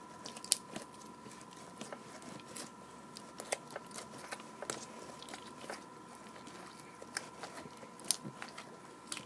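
Sticky red putty slime being pushed and squished into its plastic pot by hand, giving faint irregular wet clicks and crackles.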